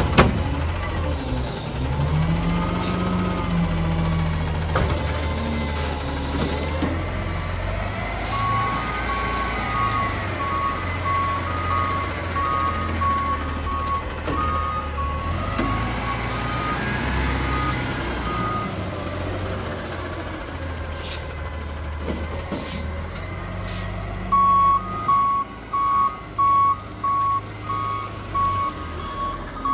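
Front-loading garbage truck running while its automated cart arm lifts a yard-waste cart up over the cab and lowers it again, the hydraulics whining up and down in pitch. The backup alarm beeps steadily for several seconds about a third of the way in, and again over the last few seconds.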